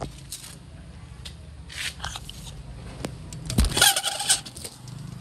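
Knocks, clicks and scraping from handling metal gear while a tape measure is readied against an aluminium airline galley cart, loudest in a rattling scrape a little after the midpoint. A low engine-like hum runs underneath and drops away about three and a half seconds in.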